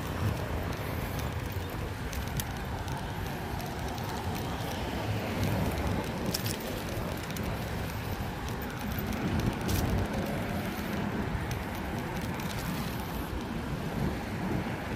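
Riding noise on a bicycle along a city road: a steady rumble of wind and road noise with motor traffic, and a few sharp clicks scattered through it.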